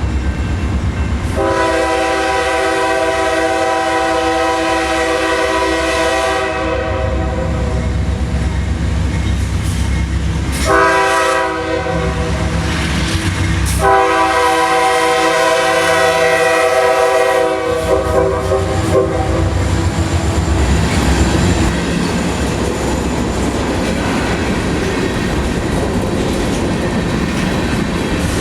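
CSX diesel freight locomotives passing, their multi-chime air horn sounding a long blast, a short one, then another long one, over the steady rumble of the engines. After the horn stops, the rumble and the clatter of the freight cars' wheels on the rail joints carry on.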